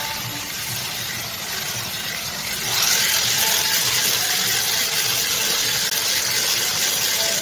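1/10 electric RC drift car with a 540 motor spinning on a tiled floor: motor whine and the hard drift tyres hissing as they slide across the tiles. It gets louder about three seconds in as the car spins close by.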